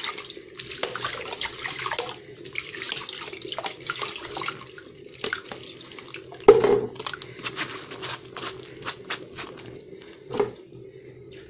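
Water running and splashing in a plastic sieve of chopped onions in a stainless steel sink as the onions are rinsed and swirled by hand, with small clicks and splashes. A sharp knock a little past halfway and a smaller one near the end.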